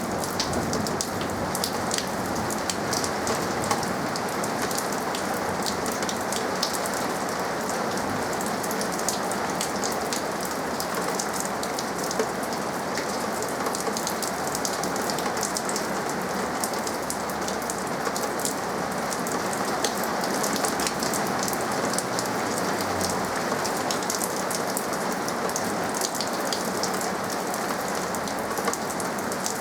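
Steady rain falling, with a dense patter of individual drops striking throughout.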